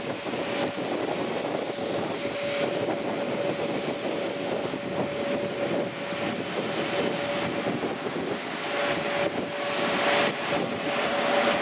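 Airbus A321 jet engines at taxi power as the airliner taxis after landing: a steady rushing noise with a steady mid-pitched whine on top.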